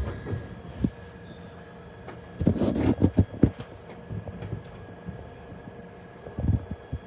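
Glasgow Subway carriage standing at a station platform: a steady electrical hum with a faint whine, broken by a cluster of knocks and bumps about halfway through and again near the end.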